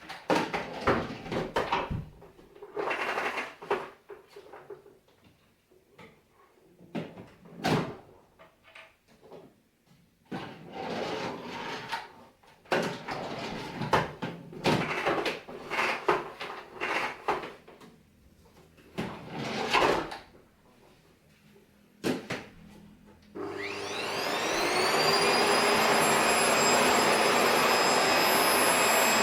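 Irregular knocks and clicks of the Panasonic MC-PJ23A paper-bag canister vacuum cleaner being handled. Near the end it is switched on: the motor's whine rises as it spins up, then it runs steadily with a loud rushing of air.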